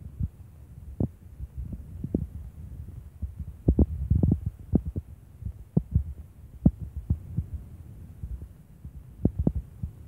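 Dull, irregular thumps and knocks over a low, steady rumble: handling noise and footsteps picked up by a phone microphone as it is carried across rocks. The thumps are densest around the middle.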